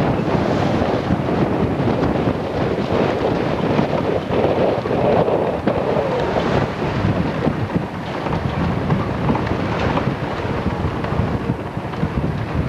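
Strong wind buffeting the microphone in a steady, loud rumble, with water rushing past the hull of a sailboat under way.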